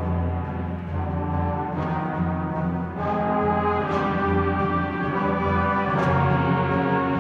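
Concert band playing a slow passage, brass and low winds holding sustained chords over a steady bass note. The chords change every second or two, and the band grows louder about three seconds in.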